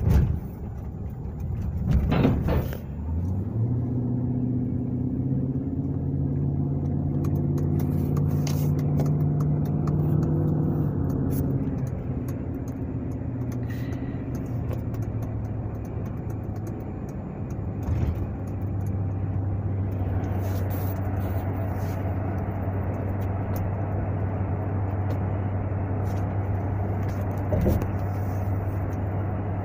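Car engine and road noise heard from inside the moving car's cabin. The engine note comes in about three seconds in and then holds as a steady low hum, with a few brief knocks along the way.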